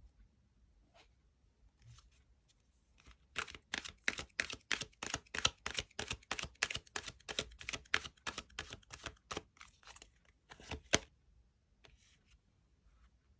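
Tarot cards being shuffled by hand: a quick run of card flicks and slaps, about five a second, starting a few seconds in and stopping sharply near the end. A few faint taps of card handling come before and after.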